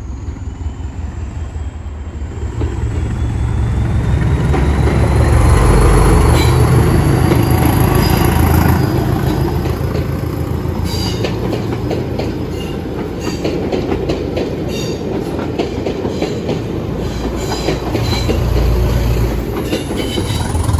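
Class 201 'Hastings' diesel-electric multiple unit passing through the station. Its English Electric diesel engine throbs loudest a few seconds in, then the coaches' wheels click over the rail joints, with a second swell of engine noise near the end.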